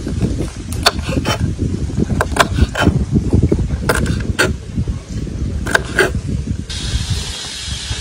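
Kitchen knife chopping green beans on a wooden cutting board: irregular sharp knocks of the blade against the board over a low rumbling noise. Near the end a steady hiss sets in abruptly.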